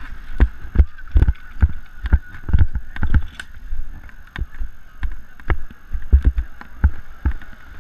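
Repeated heavy thumps and knocks, about two or three a second, from a body-carried camera jolting with each stride of a run across grass, with a faint steady whine underneath.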